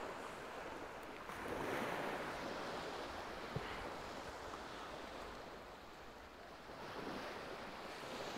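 Sea waves washing on the shore, swelling twice, with some wind on the microphone and a single small click about three and a half seconds in.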